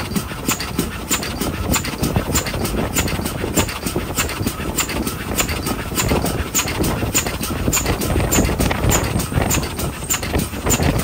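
GWR small Prairie tank locomotive No. 5552 under way, its two-cylinder exhaust and wheels on the rails making a fast, even beat of several strokes a second over a steady low rumble.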